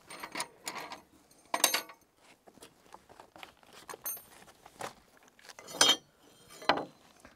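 Long steel timber screws clinking as they are handled and laid on a wooden bridge deck: several sharp metallic clinks, the loudest about a second and a half in and again near the end.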